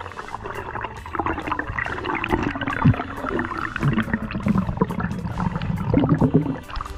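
Underwater sound as the camera rises through the water: gurgling, rushing water around the camera, with scattered clicks and crackles throughout.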